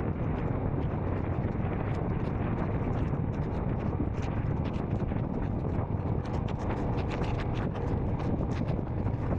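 Royal Enfield Scram 440's single-cylinder engine running steadily under way, with wind rushing over the microphone. From about two seconds in, a scatter of small sharp ticks sits on top of it.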